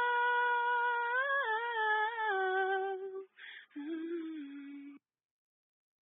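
A woman's voice singing unaccompanied, holding one long sustained note that lifts slightly partway through, then a lower held note that stops short about five seconds in, leaving silence.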